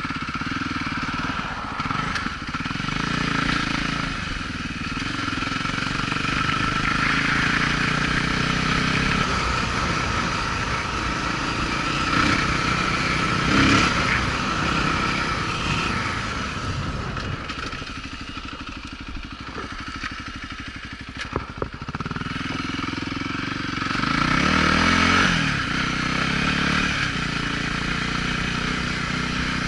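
Voge 300 Rally's single-cylinder engine running on the move, its note rising and falling with the throttle. It eases off and runs quieter about two-thirds of the way through, then revs up again.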